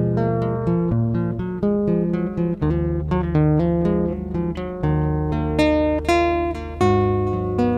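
Acoustic guitar music, notes plucked in a quick, steady run over held low chords.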